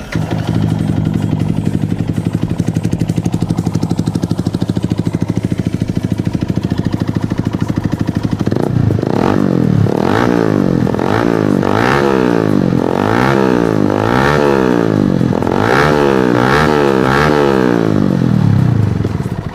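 Motorcycle with an Akrapovic aftermarket exhaust idling with a steady, rapid pulsing note, then revved in about ten quick throttle blips, the pitch rising and falling with each, from about eight seconds in until it cuts off near the end.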